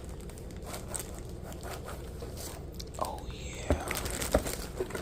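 Scattered clicks, knocks and crinkling handling noises, with a few sharper knocks in the second half.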